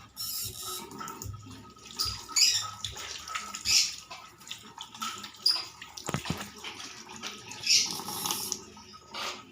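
Water running from a tap and splashing as hands are washed, in irregular louder bursts.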